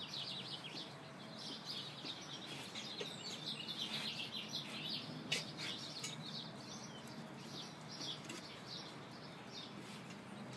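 Small birds chirping rapidly and continuously in the background, with a single light click about five seconds in.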